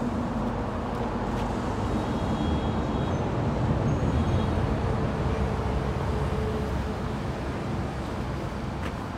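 Steady low rumble of road-vehicle noise, swelling about three to four seconds in and easing off toward the end.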